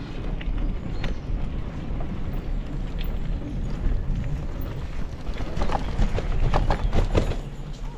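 Wind buffeting the microphone, giving an uneven low rumble, with a few light clicks in the second half.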